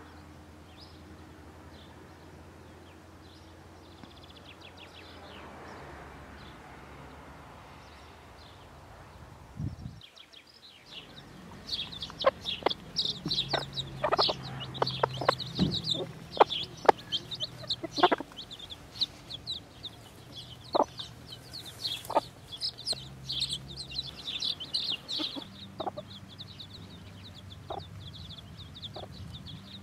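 Appenzeller Spitzhauben hen clucking low while her chicks peep, high and busy. The peeping is faint for the first third, then after a brief drop it turns dense and loud, mixed with short sharp calls.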